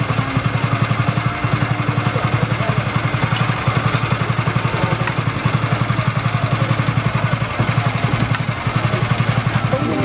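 Small engine idling steadily, a rapid, even low throb with no change in speed, with a few faint clicks.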